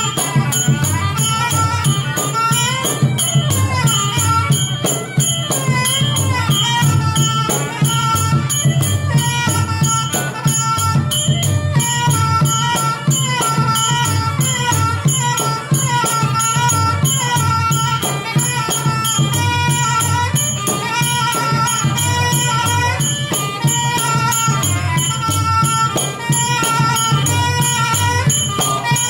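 Khmer pinpeat ensemble playing: a sralai quadruple-reed oboe carries a gliding melody over roneat xylophones, kong vong gong circles, and sampho and skor thom drums, with a fast, steady ticking pulse on top.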